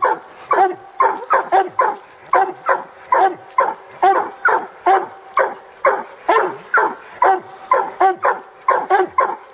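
Coon hounds barking in a rapid, unbroken string, about three barks a second, over a raccoon just shot out of the tree.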